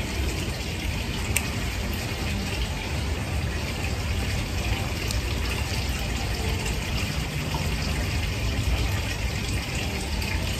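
Steady rushing noise like running water, with a couple of faint sharp clicks.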